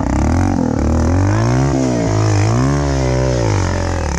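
Motorcycle engine revving up and falling back about three times in a row as the bike labours over a steep, rough dirt trail. The rider is fighting for grip and balance to get it through.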